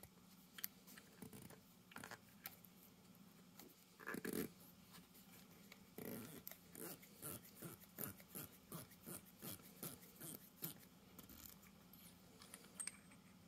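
Faint ticking and scratching of a small brass propane-valve assembly being unscrewed by hand, its threads and the fingers on the metal clicking about two to three times a second through the middle stretch, with one slightly louder rustle of handling before that.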